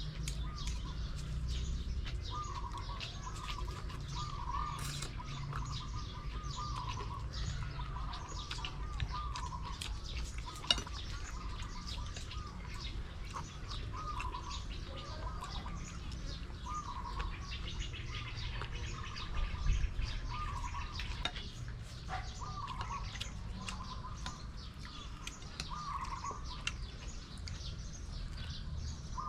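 Birds calling: one bird repeats a short warbling call every second or two, with fainter high chirps in between, over a low steady rumble.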